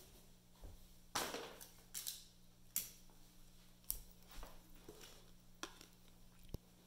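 Faint handling noises: a string of sharp clicks and short scrapes as cardboard puppet cutouts are moved and lifted off a hard tabletop, over a low steady hum.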